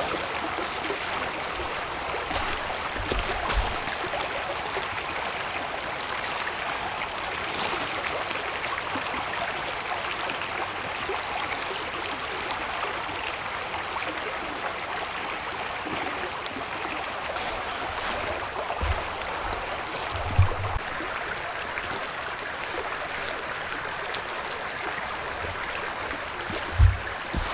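Steady rush of running water, with a few brief dull low thumps, the loudest about two-thirds of the way through and near the end.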